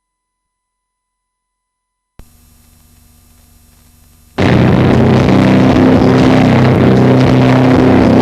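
Silence, then a faint amplifier hum, then about four seconds in a live rock band (electric guitar, bass and drums) starts playing, very loud and distorted in an overloaded recording.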